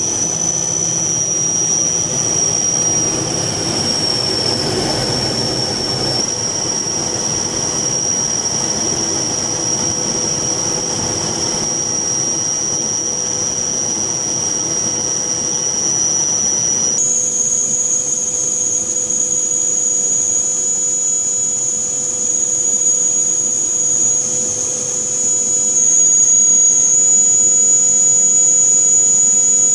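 Aircraft engine running steadily in flight, a high-pitched whine over a rush of engine and air noise, as heard aboard an aircraft. About halfway through, the whine jumps slightly higher and the low rumble thins out.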